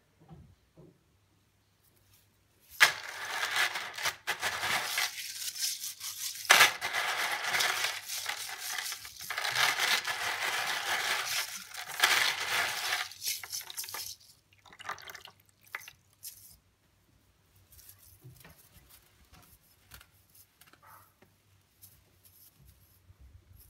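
Chainmail being scrubbed by hand in a basin of soapy water: water sloshing and the metal rings clinking and jingling together, from about three seconds in until about fourteen seconds. After that, faint rustling and light clinks as the mail is rubbed dry in a cloth towel.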